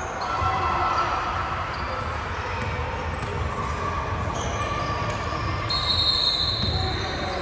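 Sounds of a youth basketball game: a basketball bouncing on the court amid background voices, with a brief high-pitched tone a little over halfway through.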